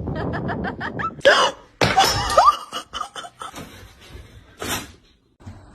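A person laughing in a quick run of short bursts. Louder, sharper sounds with brief rising cries follow a second or two in.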